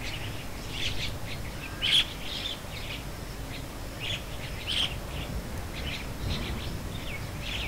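Small birds chirping, with many short high calls coming irregularly several times a second, over a low steady background rumble.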